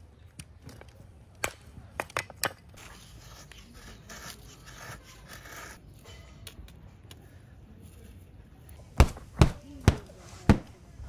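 Scattered light clicks and a rustle, then four heavy knocks about half a second apart near the end.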